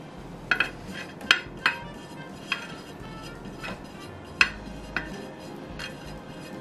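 Metal icing spatula clinking and tapping against a metal cake turntable while whipped cream is smoothed onto a cake, a handful of irregular sharp clinks.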